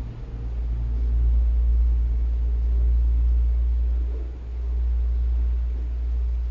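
A steady low rumble, with a short dip in level about four seconds in.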